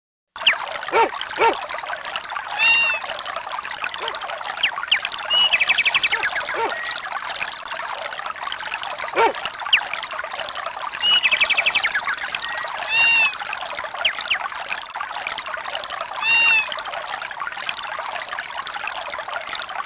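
A Samsung Anycall SCH-E370 ringtone of nature sounds, played from its MMF file: a steady trickle of running water with clicks and short bird-like chirps now and then. It starts just after the beginning and cuts off abruptly at the end.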